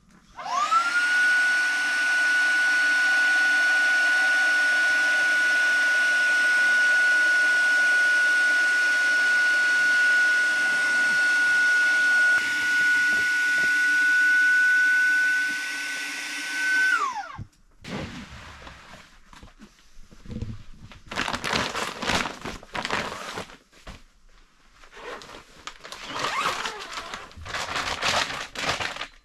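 A small electric motor spins up quickly, runs steadily with a high whine for about 17 seconds, then winds down. After that come irregular rustling and crinkling sounds.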